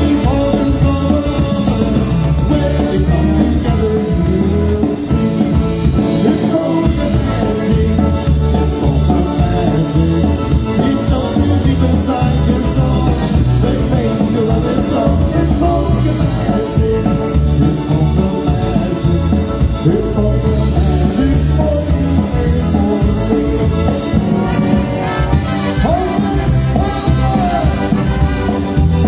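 Live polka band playing, with a steady pulsing bass beat under the melody lines.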